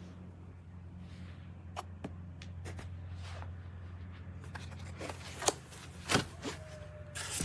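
Rustling and light clicks of shower-system parts and plastic packaging being handled and set down, with two sharper knocks about five and a half and six seconds in, over a steady low hum.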